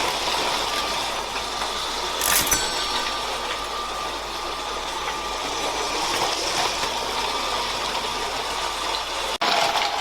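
Toy train running on its track: a steady mechanical rattle, with a short sharp clatter about two seconds in.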